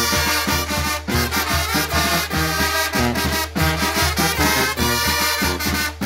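A Guerrero-style brass band playing live: trumpets, trombones and alto saxophones over a drum kit with cymbal, with a regular low beat underneath.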